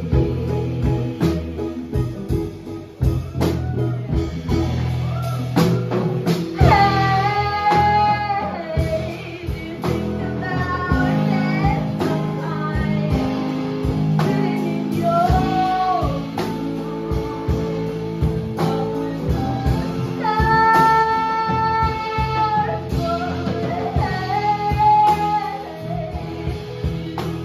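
Live jazz band playing: a woman sings long held notes over hollow-body electric guitar, upright double bass and drums.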